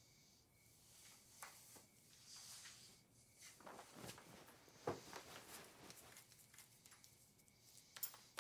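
Near silence: room tone with a few faint rustles and soft knocks.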